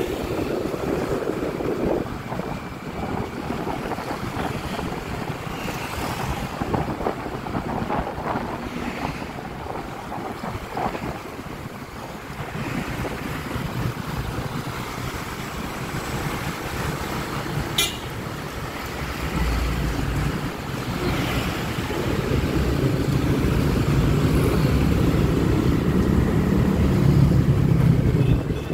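Wind buffeting the microphone of a Honda Click 125i scooter on the move, with road and traffic noise underneath. The rumble grows louder over the last third, and there is one brief click a little past halfway.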